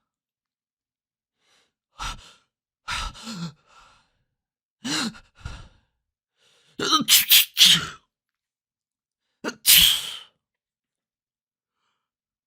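A series of separate human sneezes in different styles, each a short sudden burst cut off into dead silence; about five in all, one of them a quick run of three.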